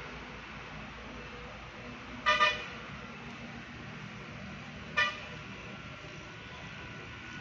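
A horn tooting: a quick double toot about two seconds in, then one short toot about five seconds in, over a steady low background hum.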